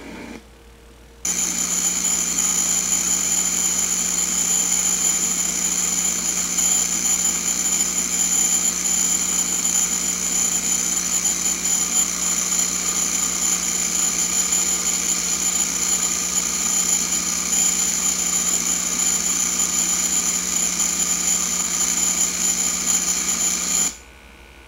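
Hydro-Tek SC series pressure washer running steadily, a constant machine drone with a high whine. It starts abruptly about a second in and cuts off near the end.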